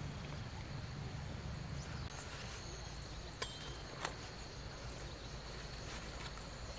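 Outdoor garden ambience: a steady low rumble with a faint, steady high-pitched tone, and two short, sharp clicks a little over half a second apart about halfway through.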